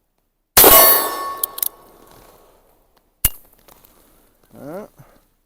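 Cimarron single-action revolver in .45 Long Colt firing one shot about half a second in, followed by a metallic ringing that dies away over a second or so. A few light clicks of the action follow, then a single sharp click about three seconds in.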